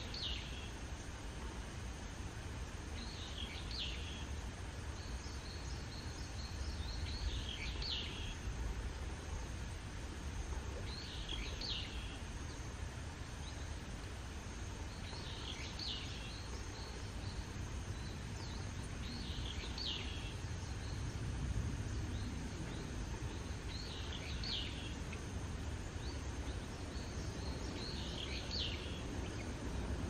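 A bird calling a short, high phrase about every four seconds, eight times in all, over a steady low rumble of background noise.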